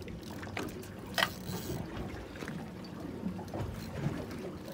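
Water lapping and trickling against a boat's hull, with a single sharp click about a second in.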